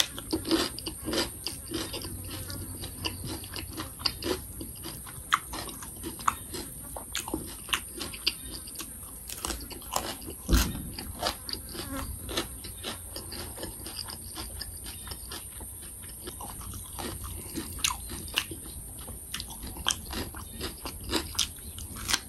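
Close-miked chewing and biting: a person crunching raw cucumber with chili paste, with many small wet mouth clicks and one louder crunch about ten seconds in.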